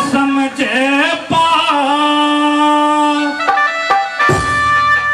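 Hindi folk song: a singing voice holding long, wavering notes over instrumental accompaniment, with a low steady drone joining about four seconds in.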